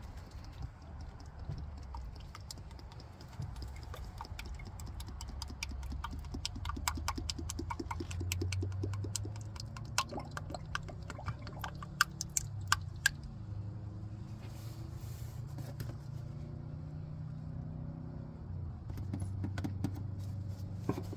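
CVT transmission fluid glugging out of an upturned plastic quart bottle into a funnel, heard as a fast run of gurgling clicks through the middle, with a few sharper knocks about halfway through.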